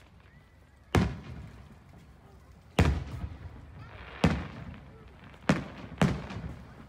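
Aerial firework shells bursting: five sharp bangs at uneven intervals, the first about a second in, each trailing off in an echo.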